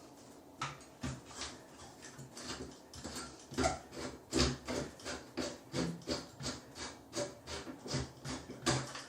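An old shower head being worked loose from its threaded arm: a run of short metallic clicks and knocks, sparse at first, then about two or three a second from about three seconds in.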